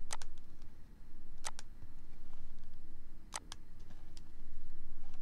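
Computer mouse button clicked three times, each a quick press-and-release double click sound, over a low steady hum.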